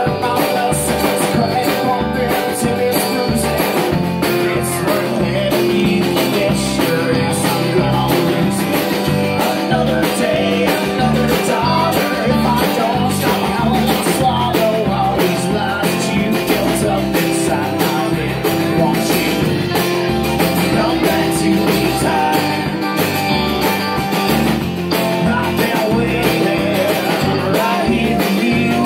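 Live rock band playing: drum kit keeping a steady beat under electric bass, acoustic and electric guitars, with a male singer at the mic.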